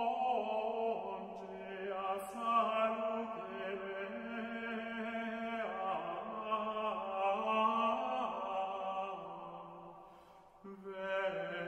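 Slow sung liturgical chant, with long held notes that step up and down in pitch. It breaks off briefly near the end and then resumes.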